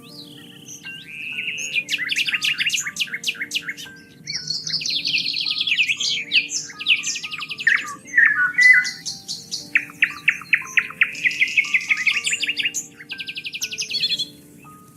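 Several songbirds singing together: fast trills, rapid strings of repeated notes and short chirps, overlapping almost without pause. Soft sustained low tones run underneath.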